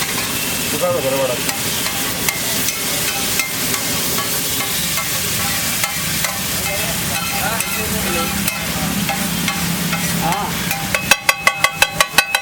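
Eggs sizzling steadily as they fry on a hot pan. Near the end comes a rapid run of sharp taps, about eight a second.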